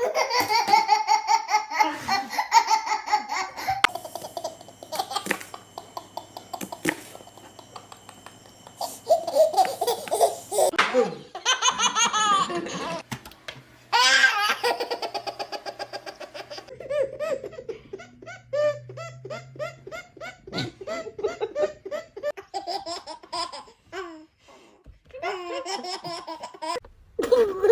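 A baby laughing in repeated bouts of high-pitched giggles and belly laughs, each bout a quick run of short pulses, with brief pauses between them.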